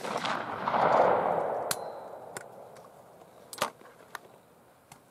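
The rolling echo of a shotgun report, which swells about a second after the shot and fades away over the next two seconds, followed by a few faint clicks of gun handling.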